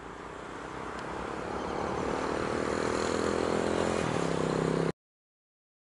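An engine running and growing steadily louder as it draws closer, then cutting off suddenly near the end.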